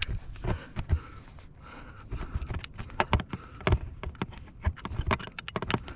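Irregular clicks, clinks and knocks of climbing gear: carabiners and quickdraws on a harness clatter as a lead climber reaches to clip the rope into a quickdraw.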